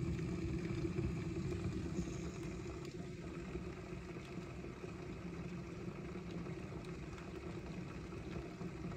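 Water boiling hard in the heating chamber of an Aphrodite tabletop hair and face steamer: a steady low rumble of bubbling as the steam builds.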